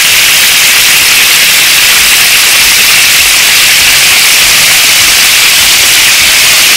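Tofu cubes frying in hot oil in a wok: a loud, steady sizzle.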